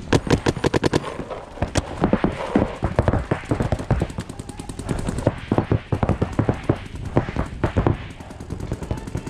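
Paintball markers firing rapid strings of shots, many a second. The densest run comes right at the start, and more strings follow throughout.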